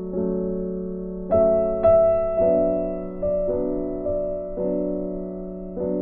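Background piano music: slow, gentle notes and chords, each struck and left to fade, with the loudest notes a little over a second in.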